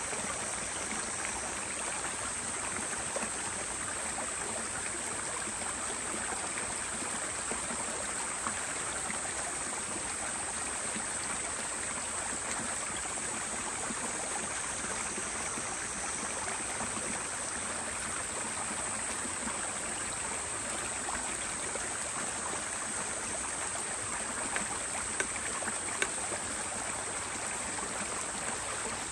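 Steady rushing of a flowing stream, with a few faint clicks near the end.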